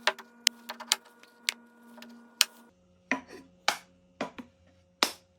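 Irregular sharp clicks followed by several heavier wooden knocks: a small wooden box and its hinge hardware being handled. The clicks are quick and light in the first half; the knocks are fewer and duller in the second half.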